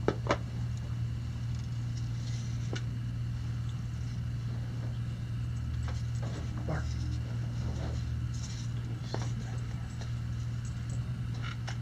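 Room tone: a steady low hum with a few faint, short clicks scattered through it.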